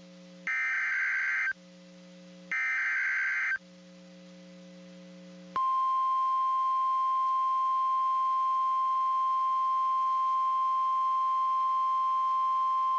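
NOAA Weather Radio Emergency Alert System tones: the last two of the three screeching SAME digital header bursts, each about a second long and a second apart. About two seconds later the steady, single-pitch weather radio warning alarm tone begins and holds, announcing a warning broadcast.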